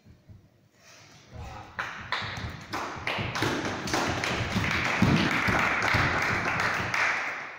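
Nunchucks being swung and caught: a run of sharp taps and clacks as the sticks strike hands and body, starting about a second in. A rushing swish from the spinning sticks builds through the second half and fades near the end.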